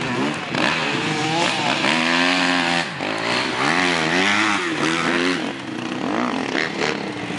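Motocross dirt bike engines revving, the pitch repeatedly rising and falling as the riders go on and off the throttle over the jumps. There is a brief drop in the sound just before three seconds in.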